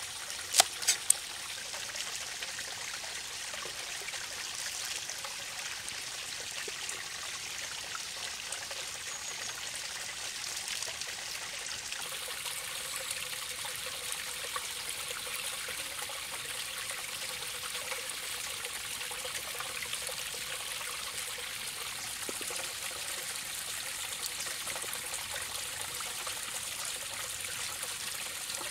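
Small stream trickling steadily. About half a second to a second in, three sharp knife cuts strike the wooden chopping block.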